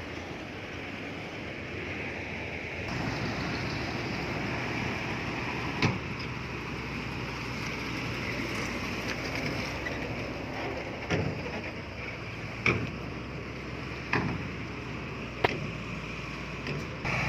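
Heavy earthmoving machinery running steadily, growing louder about three seconds in, with a few sharp knocks in the second half.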